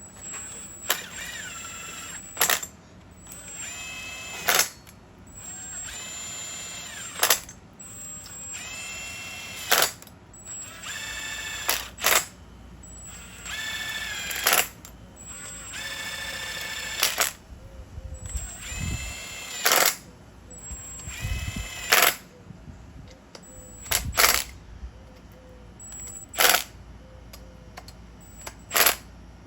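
Click-type torque wrench tightening the cylinder head bolts of an Onan P218G twin engine. Each pull brings a squeaky creak from the bolt and wrench under load that ends in a sharp click as the wrench reaches its setting. This repeats about a dozen times, roughly every two and a half seconds.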